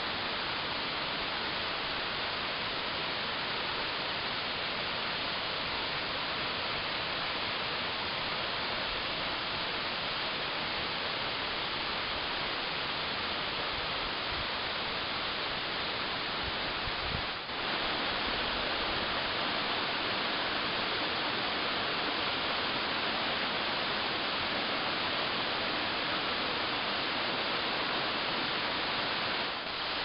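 Waterfall pouring onto rocks: a steady, even rush of falling water, with a momentary dip a little past halfway.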